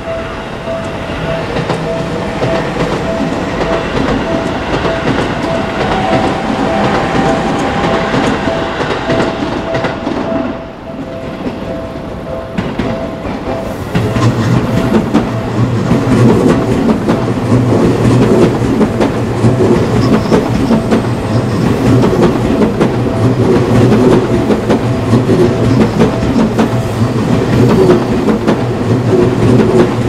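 Japanese railway crossing alarm ringing with a fast, steady, repeating tone as a Seibu electric commuter train passes. About halfway in, a train runs by close on the near track, much louder: a rumble with wheels clattering over the rail joints, which covers the bell.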